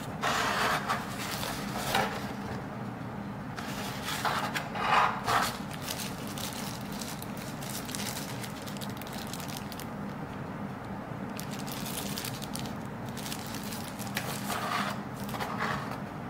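A thin wrapping sheet rustling and crinkling as it is pulled out of a cardboard packaging tray and crumpled by hand. The sound comes in several short bursts, with a long lull in the middle.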